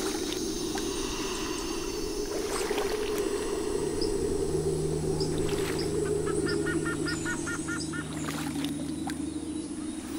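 Steady rushing of river water, with calls of small creatures over it: scattered high chirps and, about seven seconds in, a quick run of about eight chirping calls. A low steady hum comes in about four and a half seconds in.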